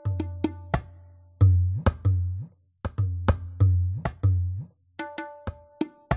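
Yamaha DD-65 digital drum playing percussion voices: a run of sharp, pitched hits like a wood block, many with a deep bass tone sustaining under them, with a short break about two and a half seconds in.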